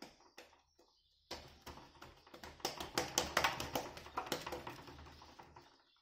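Small hands rapidly slapping and patting a ball of wheat-flour (atta) dough in a brass plate: a few single pats, then about a second in a fast run of slaps lasting about four seconds.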